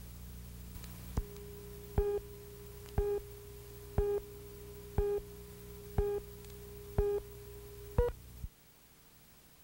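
Film-leader countdown beeps: a short mid-pitched beep with a click once a second, seven in a row, over a faint steady tone and low soundtrack hum. The last beep is slightly higher, and the hum then cuts off suddenly.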